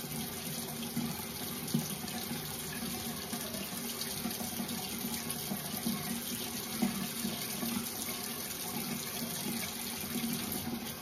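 Cold water running steadily from a bathroom tap into the sink.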